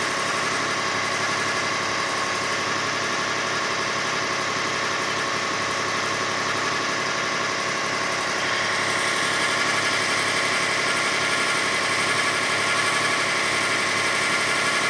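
2005 Kia Sedona's 3.5L V6 running at high idle while it warms up, with no accessory belts fitted. Mixed into the engine note is a faint noise that appeared after the timing belt and water pump were replaced and that builds as the engine warms. The sound gets slightly louder about eight seconds in.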